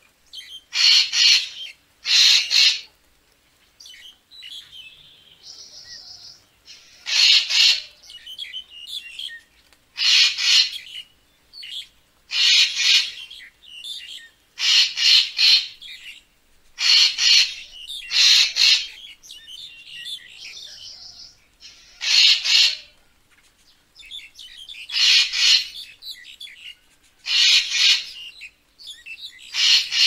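Racket-tailed treepie giving harsh, rasping calls, about a dozen of them, one every two to three seconds, with softer chattering notes in between.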